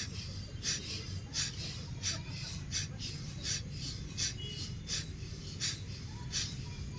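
Rapid, forceful rhythmic breaths of bhastrika pranayama (bellows breathing), sharp rushes of air about three every two seconds, over a steady low hum.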